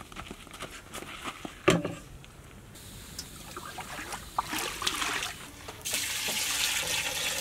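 Liquid being poured from a steel plate into a large metal pot of marinated chicken: a splashing trickle that builds over the second half and runs steadily near the end. A single sharp knock, the loudest sound, comes about two seconds in.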